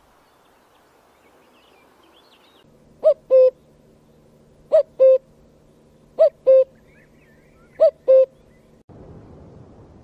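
Common cuckoo calling its two-note "cuck-oo" four times, about a second and a half apart, each call a higher note dropping to a lower one. Faint chirping birdsong sits beneath it, and a steady rushing noise takes over near the end.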